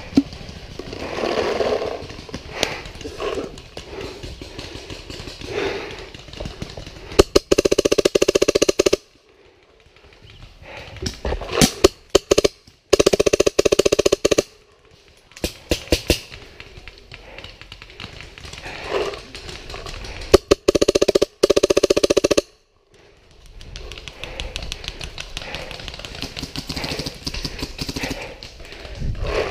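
Paintball markers firing, mostly in three rapid strings of shots, each lasting one to two seconds, with scattered single pops between them.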